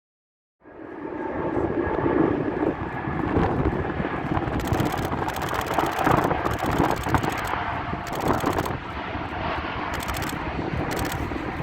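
Jet airliner, a United Airlines Boeing 787-9, with its engines making a steady loud rumble and a faint high whine; the sound starts suddenly under a second in.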